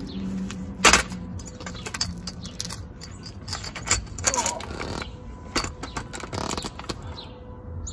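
Irregular clicks, knocks and short rattles of an aluminium-framed folding beach chair as it is handled and sat in, with the sharpest knock about a second in.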